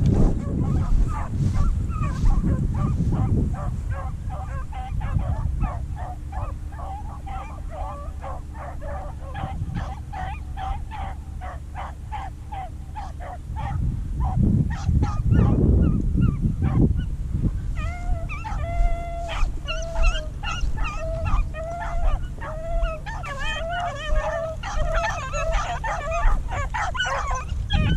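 Rabbit-hunting beagles baying and yelping in quick, repeated calls that overlap as several dogs give tongue, the chase cry of hounds running a rabbit's trail. The calls grow thicker and louder in the second half. A low rumble comes at the start and again about halfway through.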